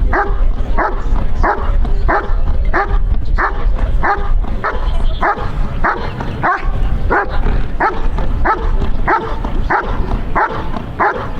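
German Shepherd barking steadily and rhythmically, about one and a half barks a second, over a steady low rumble.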